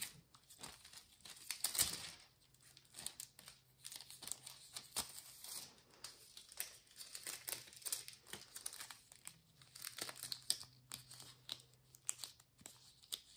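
Thin gold nail transfer foil crinkling as fingers handle and fold the sheet, in quiet, irregular crackles.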